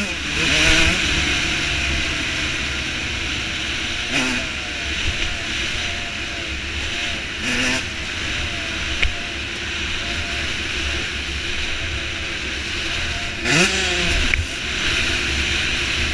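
Dirt bike engine running at trail speed, its pitch wavering with the throttle and rising sharply in brief revs a few times, with wind rushing over the helmet-mounted camera.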